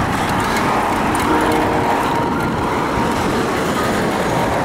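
Steady road and traffic noise from riding a bicycle along a busy city road: a continuous even rush with no distinct events.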